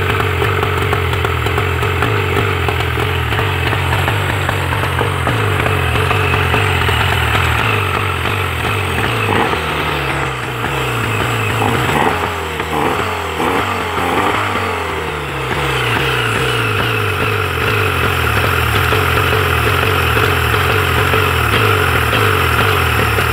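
A 1999 Mariner 40 hp two-stroke outboard engine runs at a steady idle. Between about ten and sixteen seconds in, the engine speed wavers up and down while the throttle linkage is worked by hand, then it settles back to a steady idle.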